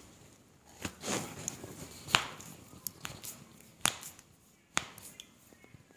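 A series of about six sharp clicks and knocks from hands-on chiropractic manipulation of a patient's body, the loudest about two seconds in.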